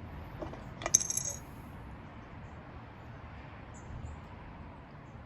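Quiet outdoor background with one sharp, short clink about a second in that rings briefly high up, and a few faint ticks after it.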